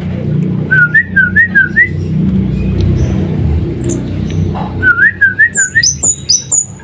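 Caged kemadi songbird singing: a short wavy whistled phrase given twice, a few seconds apart, then a run of sharp high chirps near the end, over a steady low background rumble.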